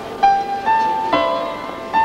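Background film score: a slow piano melody of single notes, four in two seconds, each struck sharply and left to ring and fade.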